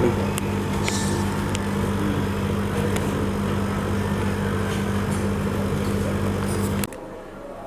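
Outdoor unit of a Panasonic split air conditioner running on test, a steady low mechanical hum from its compressor and fan, which cuts off abruptly about seven seconds in.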